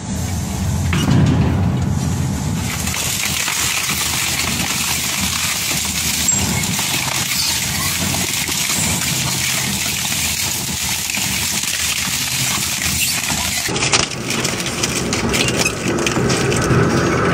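Industrial shredding or crushing machine running steadily as it grinds through material. About 14 seconds in, the sound changes and grows fuller.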